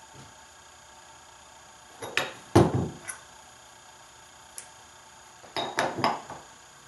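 Steel bending bar and steel edge wire clanking on a wire-bending jig's steel plate and wooden board as the upholstery edge wire is bent. A cluster of metallic knocks comes about two seconds in, the loudest a heavy knock, then a single tick and a second cluster of sharp clinks near the end.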